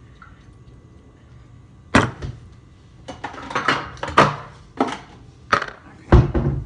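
Kitchen knife chopping lettuce, striking a cutting board in about seven uneven knocks that begin about two seconds in, the last one the heaviest.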